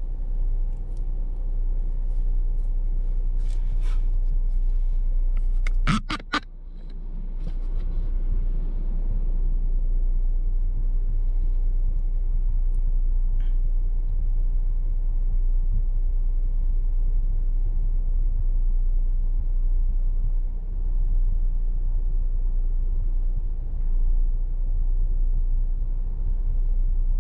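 Steady low rumble inside a parked SUV's cabin, with a quick cluster of sharp clicks about six seconds in.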